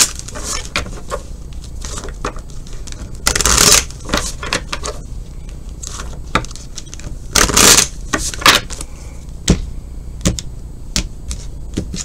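A tarot deck being shuffled and handled: a string of light clicks and taps, with two short papery riffling bursts, one about three and a half seconds in and one about seven and a half seconds in.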